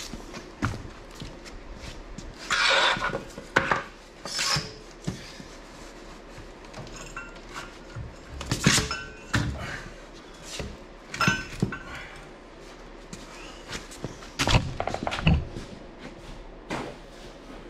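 Irregular knocks and thunks of wood blocks and metal on a concrete floor as a heavy dually rear axle is shifted and propped up on wood, a few of the hits giving short metallic rings.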